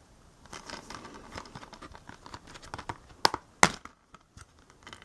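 Packaging of a two-disc anime set being handled: light crinkling and scraping, with two sharp clicks in quick succession a little past the middle.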